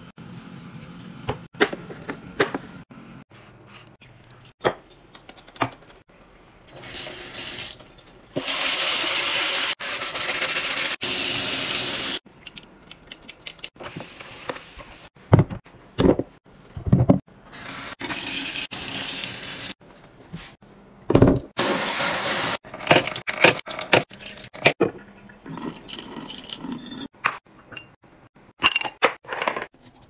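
Water running from a kitchen tap into a sink in several spells, the longest about four seconds, with knocks and clatter between them as produce and containers are handled.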